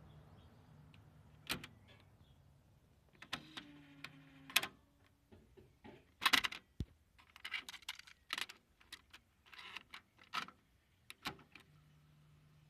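Irregular clicks and knocks from a cassette deck's push-button controls being handled, with a brief low whine about three and a half seconds in, over a faint steady hum.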